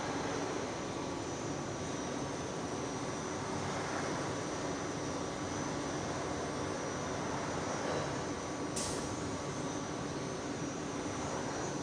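Steady mechanical rumble and hiss with faint constant tones running under it, and a brief high hiss about nine seconds in.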